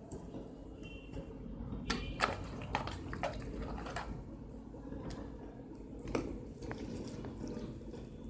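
Damp potting soil dropped and pressed by hand into a pot around a young chikoo plant's stem: soft squelches and rustles with scattered light clicks and knocks.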